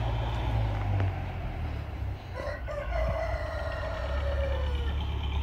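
A rooster crowing once, about two seconds in: one long call that drops a little in pitch as it ends. Under it runs a steady low rumble.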